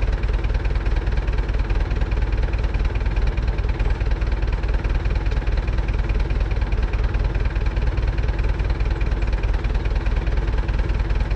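Universal U650 tractor's four-cylinder diesel engine idling steadily, an even, unchanging low rhythmic clatter.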